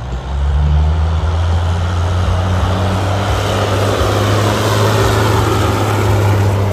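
Semi truck's diesel engine under hard load, pulling a weight-transfer sled down the track. It runs loud and steady with a deep engine tone, swelling just after the start as the truck comes past.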